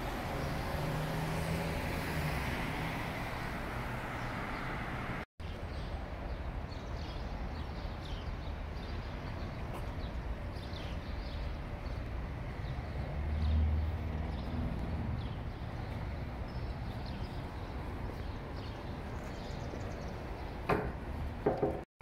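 City street ambience: a steady wash of traffic noise, with a vehicle passing about two-thirds of the way through and a few sharp knocks near the end.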